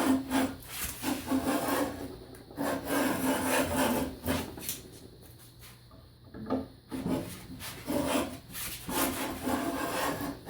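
Rabbet plane shaving oak in a run of quick passes, each stroke a rasping scrape along the grain lasting a second or two, with short breaks as the plane is drawn back; each pass takes off about a 32nd of an inch.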